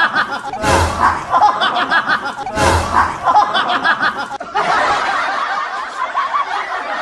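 Laughter and snickering from several voices, with a louder burst about every two seconds; about four seconds in, the sound cuts to a steadier stretch of laughing.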